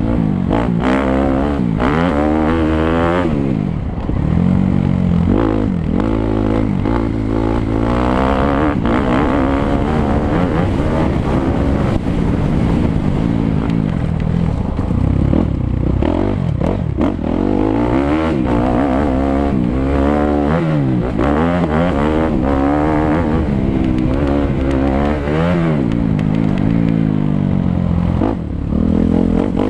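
Suzuki 250 motocross bike engine being ridden hard, the pitch climbing and dropping again and again as the throttle opens and closes.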